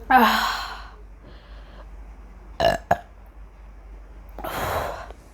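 A woman burping from the gas of chugged carbonated cola. One long loud burp comes right at the start, two short quick burps come just under three seconds in, and a longer breathy sound comes near the end.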